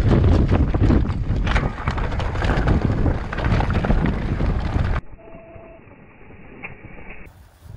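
Mountain bike rattling and clattering down a trail of loose rock, with tyres crunching over stones and wind on the microphone. About five seconds in it cuts to a much quieter, duller recording.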